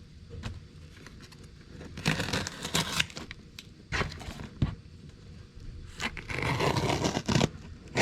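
A shipping package being opened by hand: tape and packaging tear, scrape and crinkle in two main spells, with a few sharp clicks between them.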